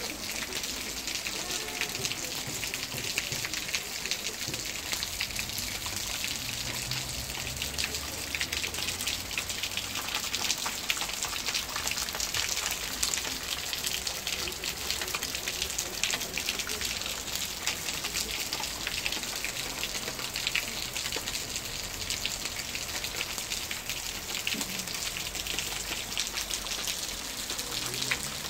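Steady rain falling on wet stone paving, many small drops hitting the surface and puddles.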